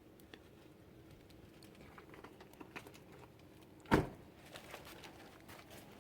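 Faint scattered clicks and handling noises, with one sharp knock about four seconds in.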